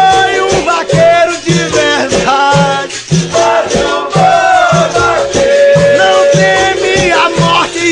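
Music from a Brazilian vaqueiro song: a steady low drum beat about twice a second, a shaken rattle, and a sliding melody line over them.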